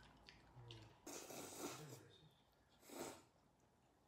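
A person chewing food and breathing out hard twice, a longer breath about a second in and a shorter one near three seconds, with faint chewing clicks before them.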